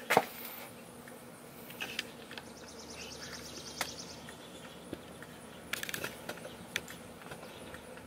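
Aloha Breeze 12-inch oscillating table fan running, a steady motor hum with the rush of its blades. A few sharp clicks fall through it, and a rapid high-pitched ticking lasts about a second and a half near the middle.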